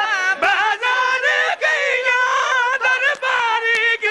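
A man's voice chanting a lament in a high, wavering, sung style, amplified through a microphone, broken by short pauses for breath.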